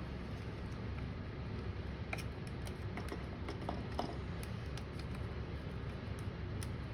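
Faint, scattered small clicks and taps of hands handling a laptop's screen panel and bezel while feeling for an adhesive pull tab, over a steady low background hum.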